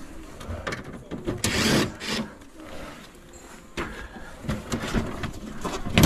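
A cordless drill-driver is at work on the plastic front panel of a stand air conditioner, with irregular clicks, knocks and plastic rubbing as the panel is handled. A louder, brief burst comes about one and a half seconds in.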